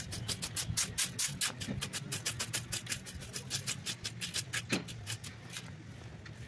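A fan rake scratching quickly over lawn grass in a rapid run of short, sharp strokes that stops about five and a half seconds in, over a low steady hum.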